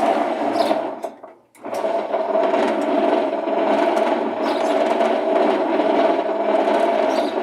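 Maytag Atlantis top-load washer's motor and transmission running in the agitate cycle, a steady mechanical hum. It starts briefly, cuts out about a second in, then runs steadily from about a second and a half in. The agitator is not turning properly: the owner finds the transmission shaft stripped.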